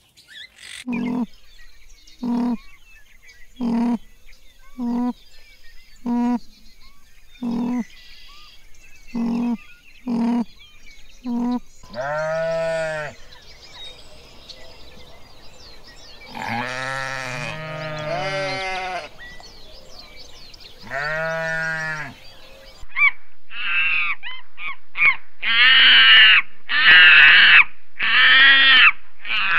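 About ten short animal calls, roughly one a second. Then sheep bleating in three long bleats. Near the end comes a run of louder, higher animal calls.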